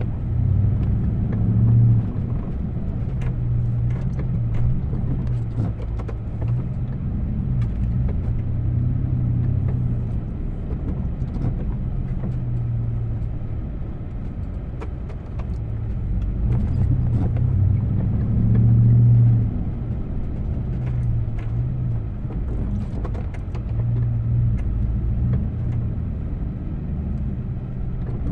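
A vehicle engine running steadily, growing louder and quieter at times, with scattered short clicks and knocks.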